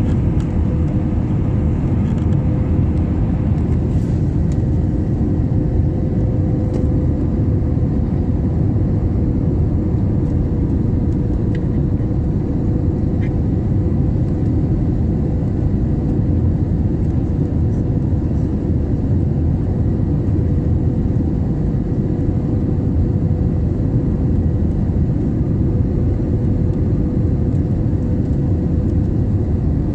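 Steady cabin noise of a passenger jet on final approach with flaps extended: engine drone and rushing air, a low rumble with a steady whine above it.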